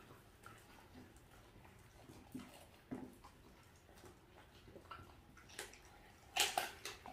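Two dogs, a Welsh corgi and a dachshund, gnawing on dried duck-meat chews: faint wet chewing with scattered small clicks, then a few loud, crisp crunches near the end.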